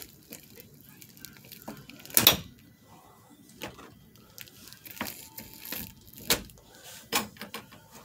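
Hands working at a door's edge and frame: scattered knocks, clicks and rustling, with one sharp knock about two seconds in the loudest.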